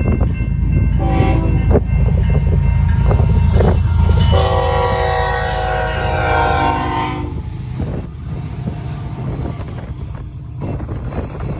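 Diesel freight locomotive's air horn sounding for a grade crossing: broken blasts early, then one long blast of about three seconds as the lead locomotive reaches the crossing, over a heavy low engine rumble. After that the locomotives and boxcars roll past, a lower steady rumble with wheel noise.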